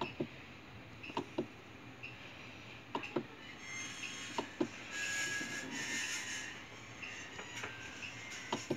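Rotary control knob of a DIGI IFT-Pro+ interferential therapy unit being turned by hand, giving sharp plastic clicks, mostly in quick pairs, as the settings step. A soft rubbing of the hand on the knob swells about halfway through.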